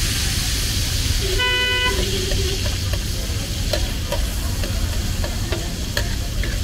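Tomatoes sizzling in oil on a large flat tawa griddle, with a metal spatula scraping and tapping the pan now and then. A vehicle horn honks once, briefly, about a second and a half in, over steady traffic rumble.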